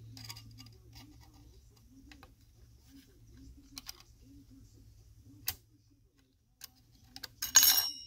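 Small screwdriver working a screw out of a metal X-clamp on a game-console motherboard: faint ticks and scrapes, a sharp click about five and a half seconds in, then a burst of louder metallic clinks with a brief ring near the end.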